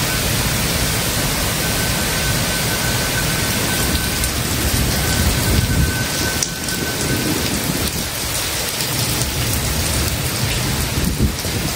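Heavy rain pouring steadily in a thunderstorm, with low rolling rumbles of thunder that swell and fade about halfway through.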